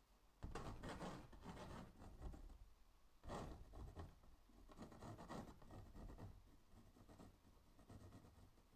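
Pencil scratching across a textured canvas in a series of short sketching strokes, quiet overall, the strongest about half a second in and just after three seconds, lighter toward the end.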